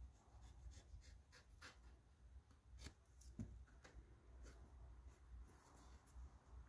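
Faint scratching and rubbing as fingers press and smooth glued trim covering onto a car's door pillar, with a few soft scratchy ticks, over low room hum.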